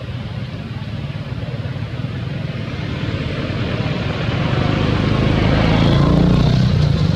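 A motor vehicle's engine running and growing louder over the last few seconds, as if drawing closer.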